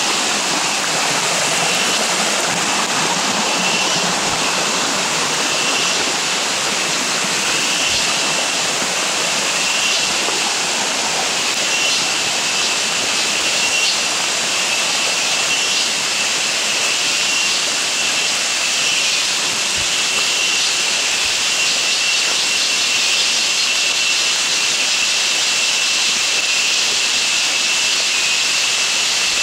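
Steady rushing hiss of monsoon rain and running water, with a continuous high-pitched drone over it and a few faint low thumps.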